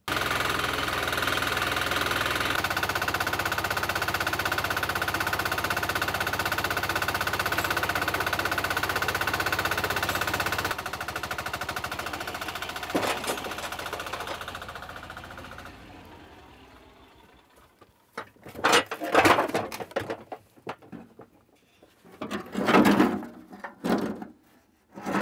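Mine machinery running loudly with a fast, even rattle; it drops in level about 11 seconds in and fades away by about 18 seconds. Several short, loud noises follow near the end.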